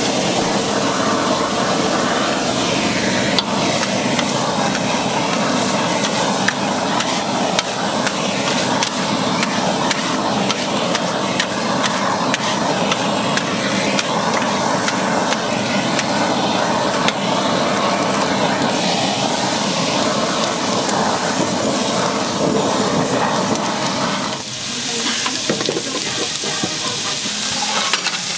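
Pork small intestine and shredded cabbage sizzling on a flat iron griddle, with metal spatulas scraping and clattering against the plate as they are stir-fried.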